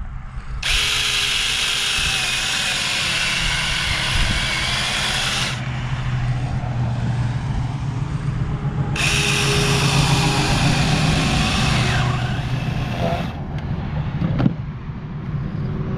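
Small chainsaw cutting into a pumpkin, brought up to full speed twice for about five and four seconds, with a steady lower running sound in between.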